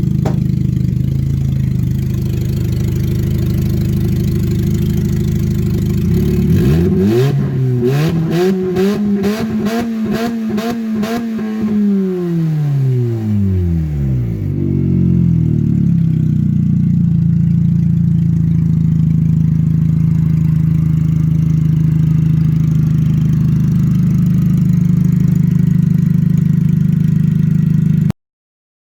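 Car engine idling steadily, revved once, rising to a peak and falling back to idle over about eight seconds, with a string of sharp ticks at the top of the rev, then idling again until the sound cuts off abruptly near the end.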